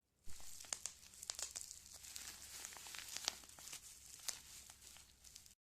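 A foley crinkling and crackling effect: many irregular sharp crackles over a faint hiss. It starts abruptly and cuts off suddenly near the end.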